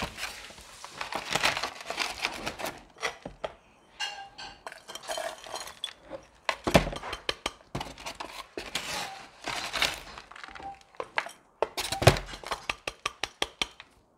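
A plastic hand scoop digging into and pouring gritty, sandy potting mix, with repeated scrapes, rattles and clicks of grit against a plastic bin and a terracotta pot.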